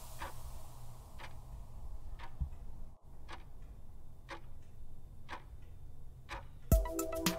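Quiz countdown timer sound effect ticking about once a second over a low hum. Near the end, music with a strong beat comes in.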